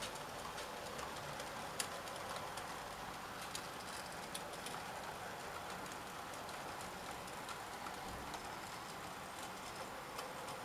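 Model trains running on the layout's track: a steady rolling hum of motors and wheels, with a few light clicks.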